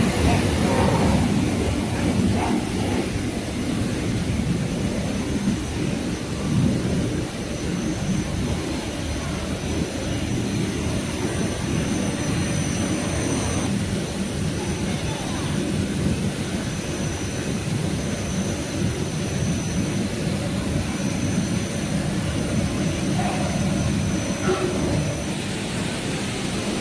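Steady rumble of running snack-production-line machinery, with a faint high whine that comes and goes.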